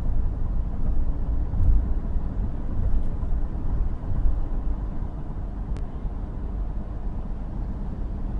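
Steady low rumble of a car driving at highway speed, road and engine noise heard from inside the cabin.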